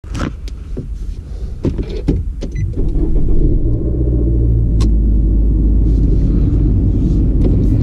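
Clicks and knocks in a Nissan car's cabin, then a steady low engine rumble sets in about three seconds in.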